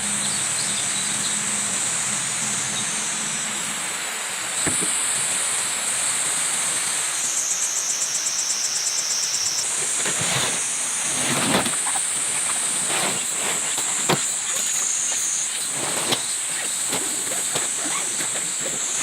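Night insects, such as crickets or katydids, calling in a steady high-pitched chorus that shifts in pitch, with a stretch of rapid pulsing about eight seconds in. A few faint clicks sound now and then.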